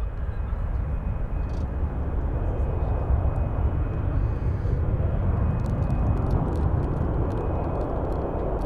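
Airbus A350-900's Rolls-Royce Trent XWB engines running at taxi power as the airliner rolls past, a steady low rumble that grows a little louder toward the middle.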